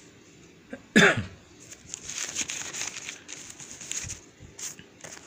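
A short cough-like vocal sound about a second in, followed by paper rustling as the pages of a printed exam booklet are turned.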